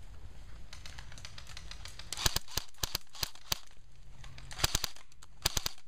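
Airsoft guns firing: sharp pops start about two seconds in, first a quick cluster, then single shots spaced about a third of a second apart, then two fast bursts of three near the end.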